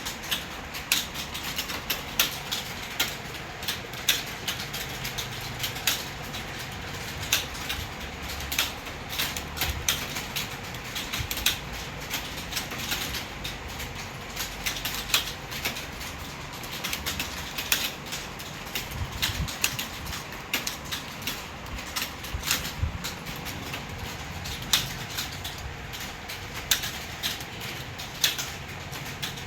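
Someone typing fast on a keyboard: rapid, irregular key clicks without pause.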